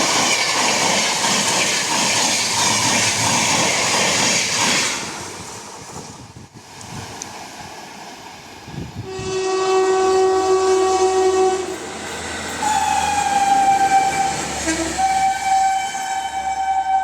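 Train wheels clattering over the rails, fading out about five seconds in. Then, a few seconds later, a WAP-7 electric locomotive's horn sounds: a two-tone blast of about three seconds, then a long shrill blast with a brief break partway through.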